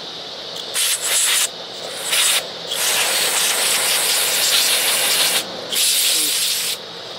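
Aerosol cleaner hissing out through a thin straw in four spurts, the third one long, blasting grime off an outboard motor's ignition points and coils.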